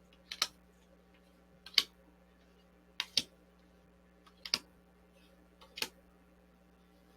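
Sharp double clicks, five of them evenly spaced about a second and a half apart, over a faint steady hum.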